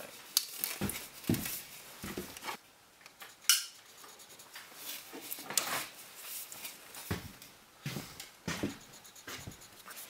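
Handling noise from a thin galvanized steel vent pipe being held, measured with a tape measure and marked with a pencil: scattered light metallic clicks, taps and scrapes.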